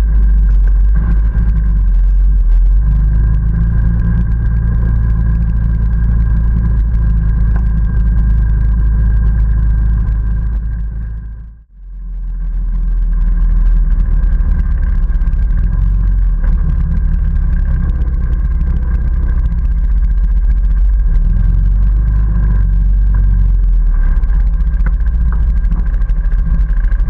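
ATV engine running steadily under way, with a heavy low rumble. The sound fades out briefly about twelve seconds in and then comes back.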